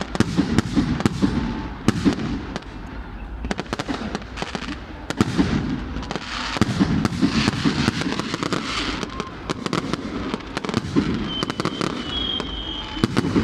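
Fireworks going off in quick succession: a dense run of sharp cracks and bangs over a continuous low rumble, with a brief thin high whistle near the end.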